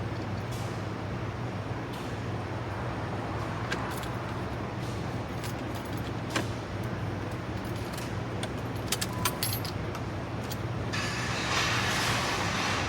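Small clicks and light metallic rattles of screws and dash trim being handled and fastened, over a steady low hum. A rush of rustling noise starts about eleven seconds in.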